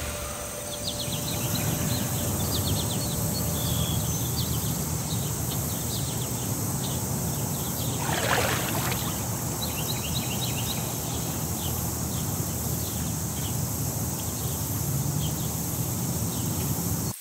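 Outdoor pond-side ambience: a steady hiss with many quick high chirps scattered throughout, and one brief louder rush about eight seconds in.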